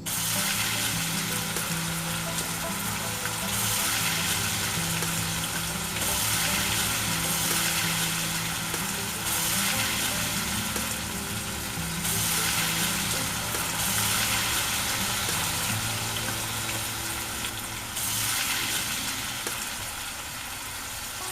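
Dough for athirasam, a jaggery-rice sweet, deep-frying in hot oil in a tiny pan, with a steady sizzle that swells and eases every few seconds.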